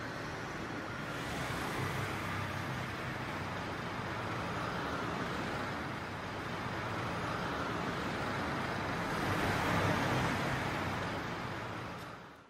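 Road traffic noise with a low engine hum from passing vehicles, swelling about two seconds in and again near ten seconds, then fading out at the end.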